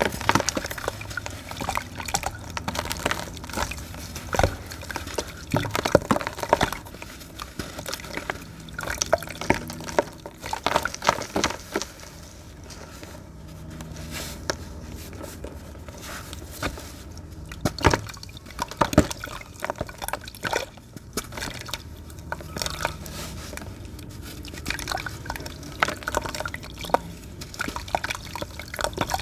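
Crunchy dry sand crumbling and falling into water: irregular clusters of crackles, splashes and drips, with a couple of quieter stretches between them.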